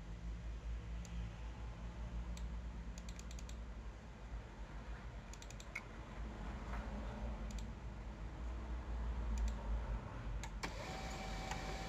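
HP LaserJet P1102 laser printer clicking irregularly, in single clicks and quick runs. Near the end its drive motor starts suddenly and runs with a steady high whine as it begins feeding paper, now that a new pickup roller is fitted.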